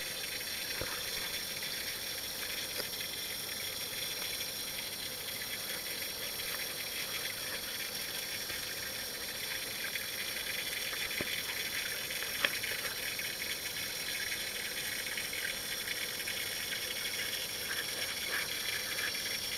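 Steady watery hiss heard underwater in a koi pond, with a few faint clicks and one sharper click about twelve and a half seconds in.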